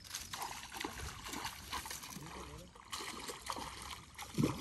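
Water sloshing and trickling, broken by scattered small knocks and rustles.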